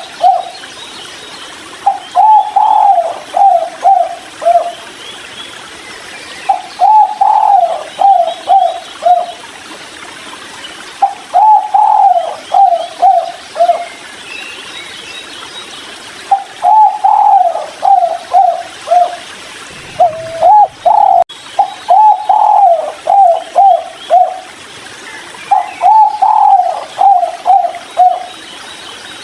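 Spotted dove (tekukur) cooing: repeated phrases of several short, low coos, about two and a half seconds each, with a pause of a couple of seconds between phrases.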